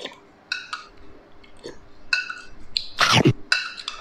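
Metal spoon clinking against a small ceramic bowl in short pairs, with a loud slurp from the spoon of star apple and milk about three seconds in.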